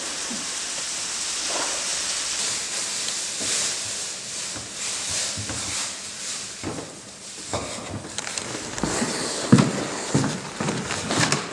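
Food frying in a large pilaf cauldron, a steady sizzling hiss, with several knocks and thuds in the last few seconds.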